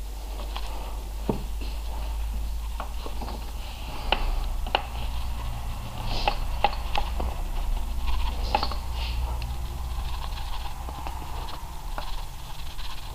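Irregular clicks, light knocks and rubbing as rubber gas hoses are pushed onto the LPG nozzles of a car's intake manifold and handled, with the engine off. A steady low hum runs underneath.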